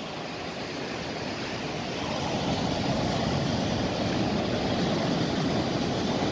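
Surf breaking on the beach: a steady rushing that grows louder about two seconds in.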